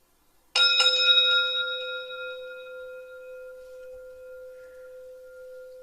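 A struck meditation bell sounds once about half a second in, ringing out with several pitches together in a long, slowly fading tone.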